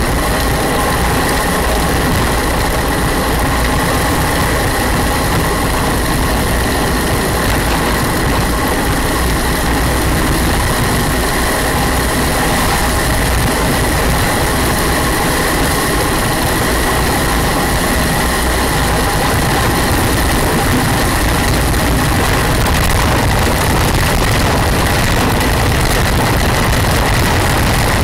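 Steady, loud rush of wind buffeting the microphone, with rolling road noise, from travelling downhill at speed behind a gravity racer.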